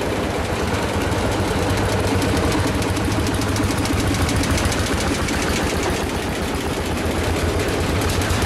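Single-cylinder tractor engines chugging past in a line, among them a Lanz Bulldog's two-stroke hot-bulb engine with its rapid, even exhaust beats. The sound stays steady and is a little louder about four seconds in.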